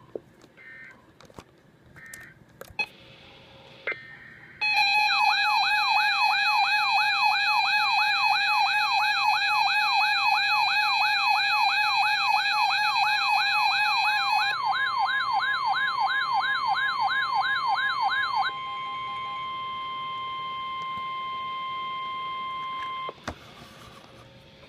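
Emergency alert tones between two warnings. First come several short bursts of digital data noise. Then a loud warbling siren alarm sweeps up and down about three times a second for some fourteen seconds, and a steady single alert tone, the kind a weather radio sounds for a warning, joins near its end, runs on alone for about four seconds after the siren stops, and cuts off suddenly.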